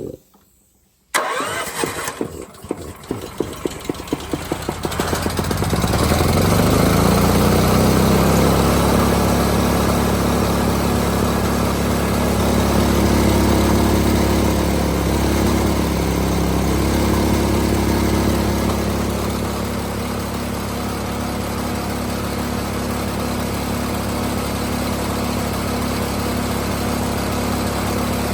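Caster gas-engine air compressor starting: a few seconds of cranking, then the engine catches about five seconds in, speeds up and settles into steady running. The valve is open, so the compressor runs without building air.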